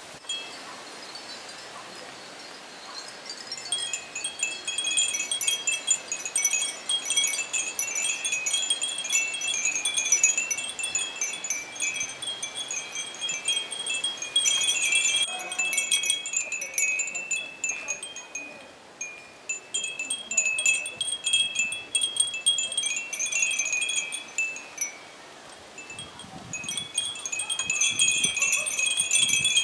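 Many Japanese fūrin wind chimes ringing together in a breeze: a dense jingle of high, bright notes that swells and fades with the gusts. It drops to a lull a few seconds before the end, then picks up again.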